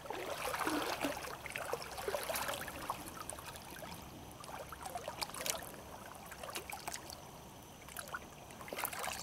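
Footsteps and rustling of someone walking through brush: irregular crackles and soft scuffs, busiest in the first couple of seconds, with a few sharper snaps later on.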